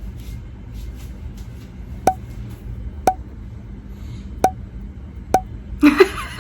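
Four sharp clicks about a second apart, each with a short ringing ping, over a low steady rumble.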